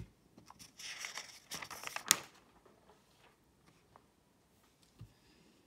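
A sheet on a lined paper pad being turned over: a rustle and crinkle of paper for about a second and a half, ending in a sharp crackle about two seconds in.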